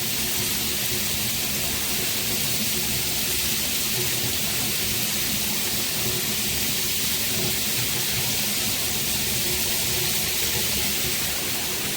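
Handheld high-pressure shower head spraying water, a steady even hiss.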